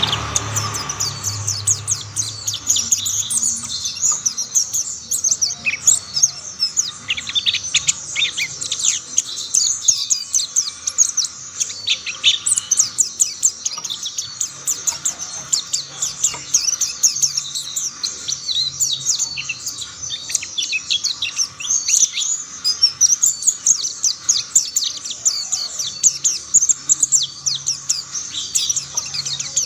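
Mountain white-eyes singing: a continuous, rapid, high-pitched twittering song of quick chirps that runs on without a break.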